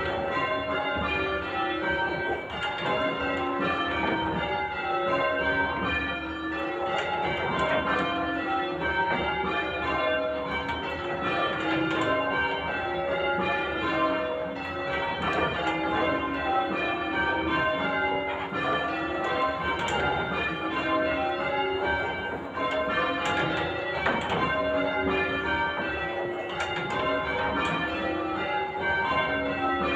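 Church bells in change ringing: a tower's bells struck one after another in a steady, even rhythm, each stroke ringing on into the next.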